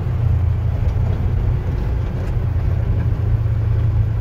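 Polaris Ranger Crew side-by-side UTV driving, its engine and drivetrain giving a steady low rumble with road and wind noise over it.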